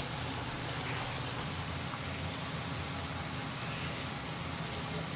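Marinated chicken jumulleok sizzling steadily in a foil-lined pan on a tabletop burner.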